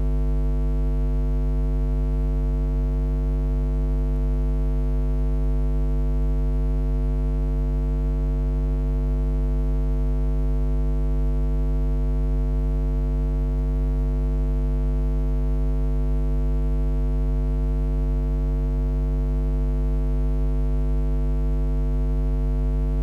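Loud, steady electrical mains hum: a low buzz with many overtones that holds unchanged throughout.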